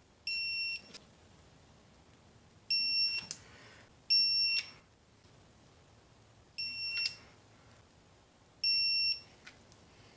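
Digital torque wrench beeping five times, about every two seconds, each a short steady electronic tone. Each beep signals that the set torque has been reached on one cylinder head bolt during the first 15 pass of a three-pass tightening sequence. Faint clicks of the wrench follow some beeps.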